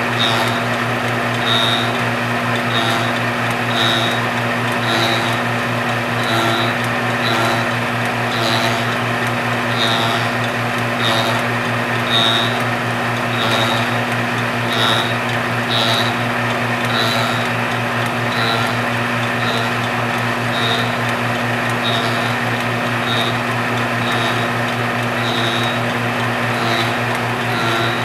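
Belt-driven fly cutter on a rose engine ornamental lathe spinning with a steady motor hum while it cuts flutes into ash. A brighter cutting bite comes round a little less than once a second.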